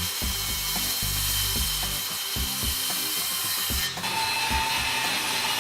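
Woodworking shop noise, a steady hiss like a power tool cutting wood, that changes abruptly about four seconds in, over background music with a low, stepping bass line.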